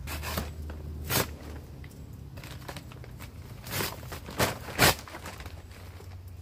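A knife slitting open a bag of lump charcoal and the bag being pulled and torn: a few short crinkling tears, the loudest cluster about four to five seconds in.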